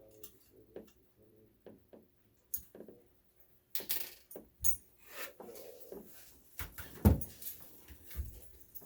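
Irregular clicks, knocks and metallic clinks of small hardware and parts being handled during assembly, busier in the second half, with the loudest knock about seven seconds in.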